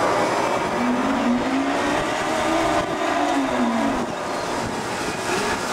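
Fishing boat's hydraulic line hauler whining as it hauls line, its pitch rising and then falling over a few seconds, over steady wind, sea and engine noise.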